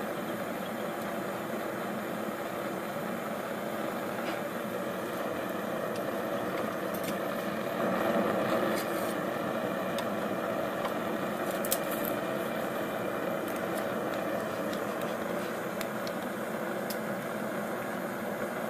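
Homemade 3/4-inch pipe gas burner firing a forge, running with a steady, even roar. A small click sounds about twelve seconds in.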